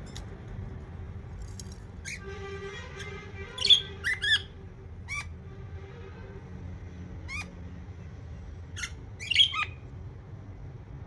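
Pet budgerigars calling: scattered sharp chirps and squawks, with a buzzy warble about two seconds in and the loudest clusters of calls near four and nine and a half seconds in. A steady low hum lies underneath.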